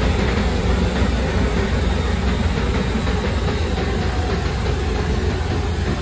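Kubota ER470 combine harvester running steadily while cutting and threshing rice: a steady diesel engine drone mixed with the rattle of the header and threshing machinery. It fades a little over the last seconds as the machine moves away.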